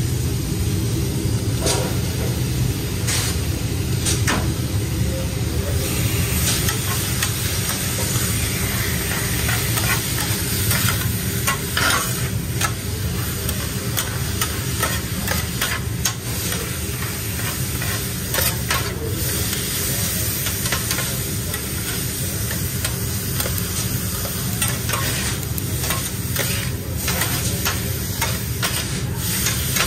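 Steak, onions and peppers sizzling on a flat-top griddle while two metal spatulas chop and scrape through them, giving frequent sharp metal clacks over the steady sizzle. A steady low hum runs underneath.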